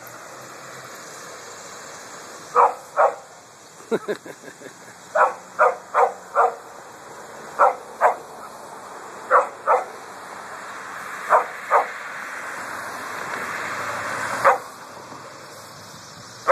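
Small chihuahua barking sharply at a passing truck and trailer, about fourteen high-pitched barks, mostly in quick pairs. The vehicle's road noise swells under the barks and falls away near the end.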